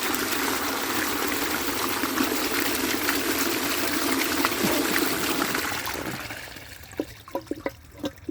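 Water rushing out of a 1931 Maples Foundry 'Burlington' cast-iron toilet cistern as it flushes, running steadily and then dying away about six seconds in, followed by a few drips.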